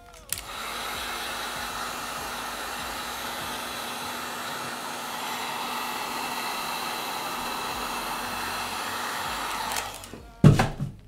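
A hot-air blower runs steadily, a rush of air with a low hum under it. It switches on just after the start and cuts off about a second before the end. Right after it stops come a couple of sharp, loud clacks.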